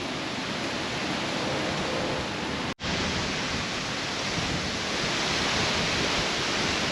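Steady, even rushing noise of an oncoming thunderstorm's wind and rain, cutting out for an instant about three seconds in.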